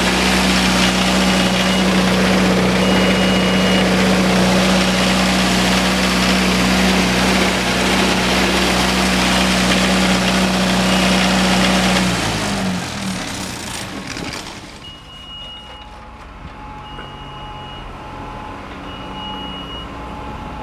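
Isuzu 4LE1 four-cylinder diesel engine of a sound-enclosed 20 kW standby generator running at a steady speed, then shutting down about twelve seconds in, its hum sagging as it spins down. Afterwards intermittent high-pitched beeps repeat over a faint background.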